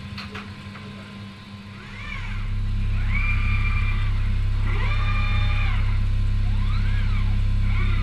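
Kawasaki RS010N industrial robot's servo motors whining as the arm makes a series of moves. Each whine rises in pitch, holds, then falls, about five times. A steady low hum comes in about two seconds in and continues.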